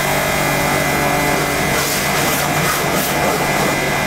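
Electric high-pressure washer running steadily, its motor humming under the hiss of the water jet as it rinses foam off a car body.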